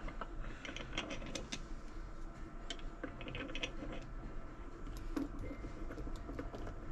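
Scattered light clicks and small metallic taps of crimp terminals and heavy power cable being handled and slid together.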